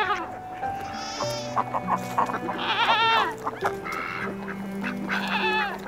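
Goats bleating several times in wavering, quavering calls, the loudest about three seconds in, over soft instrumental background music with long held notes.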